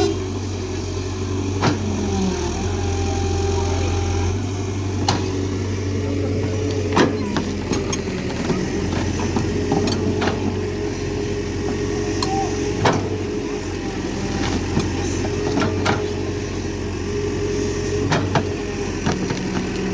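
Excavator's diesel engine running steadily, with scattered sharp knocks and clanks throughout.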